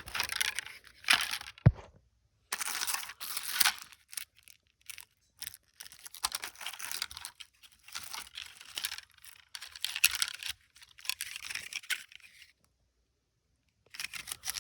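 Plastic wrapping and packaging of consumer fireworks crinkling and rustling in irregular bursts as the items are handled, with a single sharp knock a little under two seconds in.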